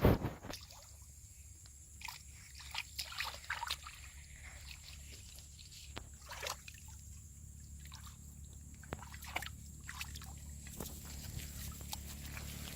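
Water sloshing and trickling in small, irregular splashes, with a steady low hum underneath.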